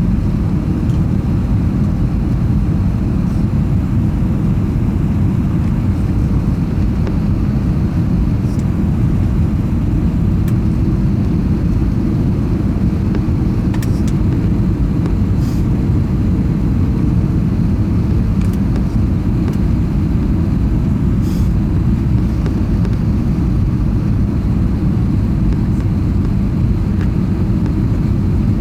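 Steady low rumble inside the cabin of an Airbus A320 airliner: engine and airflow noise heard from a passenger seat, loud and even throughout, with a faint steady hum through part of it.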